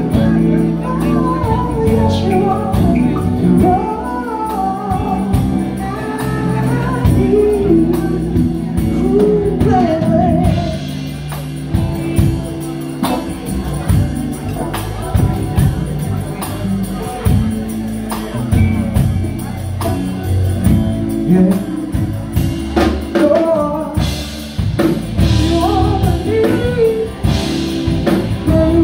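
Live band music: several men singing into microphones over electric guitar, drums and congas, with a steady beat.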